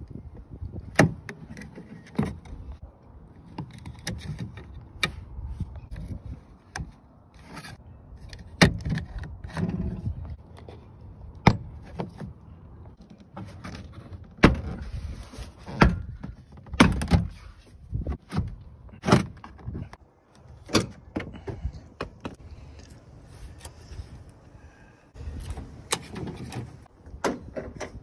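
Hands working on a 1992–95 Honda Civic door: the interior trim panel and the door handles being handled and pulled, giving irregular sharp clicks and knocks of plastic and metal, with some dull thumps against the door.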